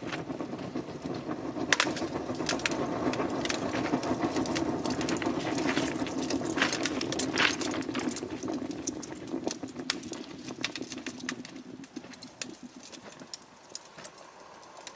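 Thermite reaction burning in the crucible of an aluminothermic rail weld: a steady rushing with sharp crackles and pops, dying away over the last few seconds as the flame goes out.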